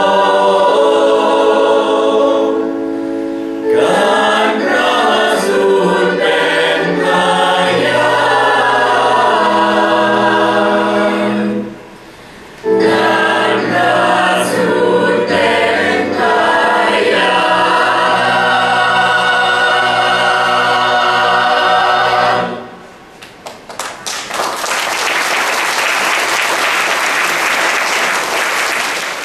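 Mixed choir singing held chords, with a short break partway through. The singing stops about three-quarters of the way in, and the audience applauds.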